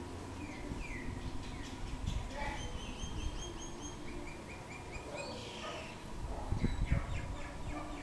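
Common myna calling: a string of varied whistled notes, including a falling whistle and quick runs of repeated notes. A low rumble comes about two-thirds of the way through and is the loudest sound.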